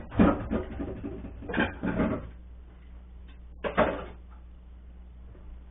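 Dishes and a mesh strainer clattering and knocking in a kitchen sink during washing up, in two bursts of knocks, the second shorter.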